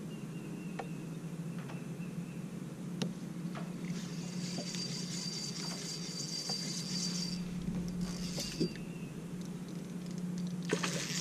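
Bass boat's electric trolling motor humming steadily, with scattered light clicks and rustles from a fishing rod and reel being cast and worked. A brief hiss comes in the middle, and a louder rush of noise starts at the very end.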